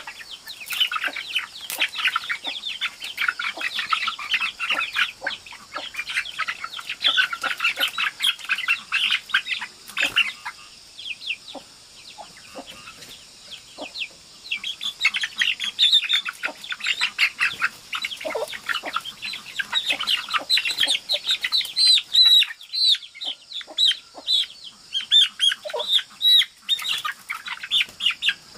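Several chickens in a woven bamboo cage clucking and calling in rapid, overlapping bursts while being handled. The calling eases off for a few seconds in the middle, then picks up again.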